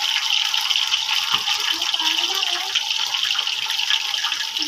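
Chicken kandi skewers deep-frying in hot oil in a frying pan: a steady, dense sizzle with fine crackling.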